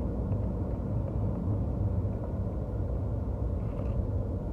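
Steady low rumble of a Chevrolet Cruze driving, engine and road noise heard from inside the cabin.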